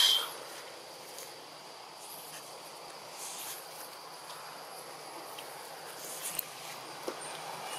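Insects chirring in the trees, a faint steady high drone with a few brief buzzes, opened by one short, sharp, high-pitched call right at the start.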